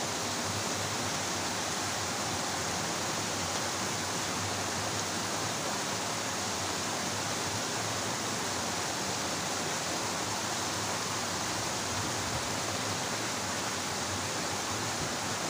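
Water rushing down a small cascade into a stream: a steady, even rush with no change throughout.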